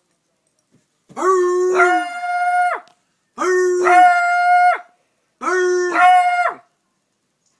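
Beagle baying: three long, drawn-out howling bays with short pauses between, each starting on a lower note and stepping up to a higher one partway through.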